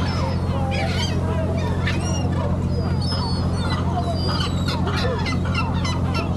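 A flock of seagulls calling, many short overlapping cries, over a steady low hum.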